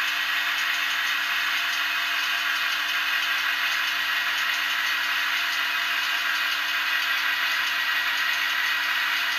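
Zimo 645 sound decoder in a Heljan OO gauge Class 28 Co-Bo model locomotive playing its Crossley two-stroke diesel engine sound, running steadily through the model's small speaker: a constant hum under an even whirr.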